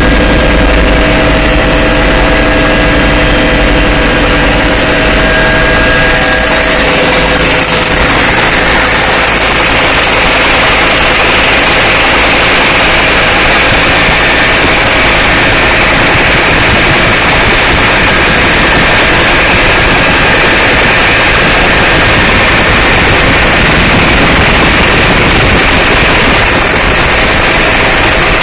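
Helicopter turbine engine and rotor running steadily, heard loud from inside the cabin: a dense, even noise with a thin high turbine whine over it.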